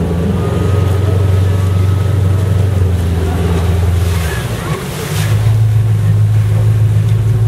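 Motorboat engine running steadily under way while towing, with wind buffeting the microphone and water rushing past. The engine hum dips briefly a little past halfway, then picks up again.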